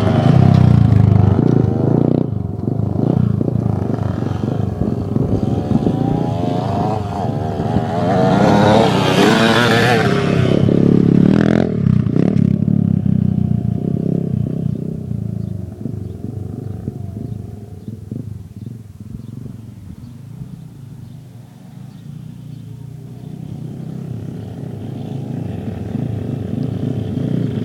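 Motocross dirt bike engine revving hard as the bike passes close over a jump, its pitch rising and falling through the jumps for about twelve seconds. Then the engine fades into the distance and runs on faintly, growing louder again near the end.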